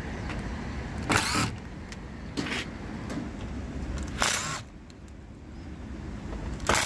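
A Bosch cordless driver spins panel screws out of the unit's sheet-metal casing. Its motor whirs briefly four times, each run lasting a fraction of a second.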